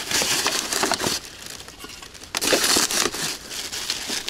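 Thin plastic carrier bag rustling and crinkling as litter is stuffed into it by hand, in two bursts: one at the start and another about two and a half seconds in.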